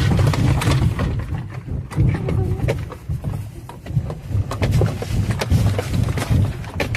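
Deep, continuous rumbling with rapid clattering and knocking of loose objects throughout, typical of a building shaking in an earthquake.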